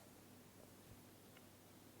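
Near silence: faint room tone with a low steady hum, in the pause between a sleeping pug's snores.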